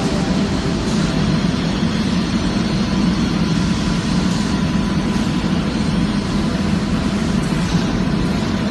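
Machinery running in a calcium carbonate powder coating plant: a steady, dense industrial hum with a faint steady whine over it.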